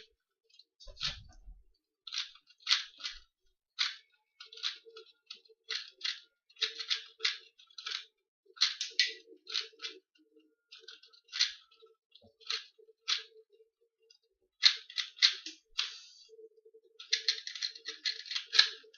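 Plastic 2x2 Rubik's cube being turned by hand in quick bursts, its layers clicking and clacking as it is scrambled, with a rapid flurry of turns near the end.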